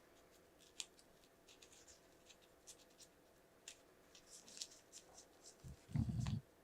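Small plastic figure accessories and their packaging being handled on a table: faint scattered clicks and light rustles, with one louder dull thump near the end.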